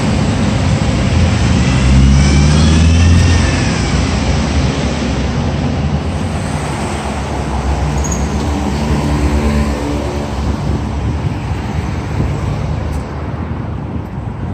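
Street traffic: motor vehicles running past, with engine noise loudest in the first few seconds, another vehicle passing about halfway through, and the traffic easing off near the end.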